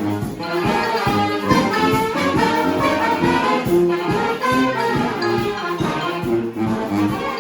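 Live brass band playing: trumpets and trombones carry the tune over a pulsing low bass line and regular drum hits.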